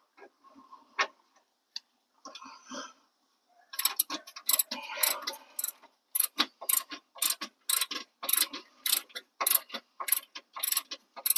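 Ratchet wrench clicking as it turns a 17 mm fastener on the front sway bar hardware of a car: a few scattered knocks, then from about four seconds in a steady run of sharp clicks, roughly two to three a second.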